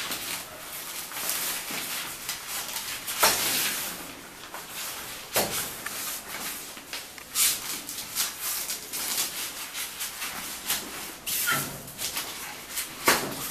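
Velcro (hook-and-loop) straps being pulled and pressed shut around a playpen's top rail, with nylon fabric rustling. There are several short rasping bursts, the loudest about three seconds in and near the end.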